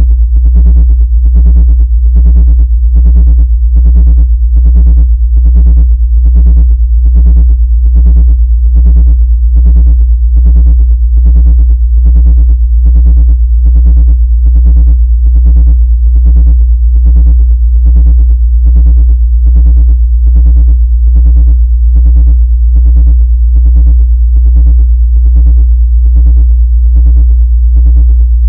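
Synthesized anti-ant sound: a loud, steady, very deep hum under a buzzy electronic tone that pulses on and off evenly about three times a second. It is sold as a frequency to drive ants out of a laptop.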